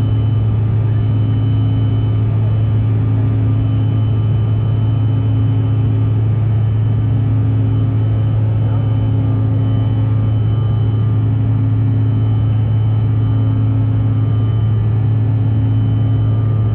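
Steady cabin noise of a Bombardier CRJ1000 regional jet climbing after takeoff, heard from a window seat. Its rear-mounted GE CF34 turbofans and the airflow make a loud, constant deep drone with a few faint steady tones above it.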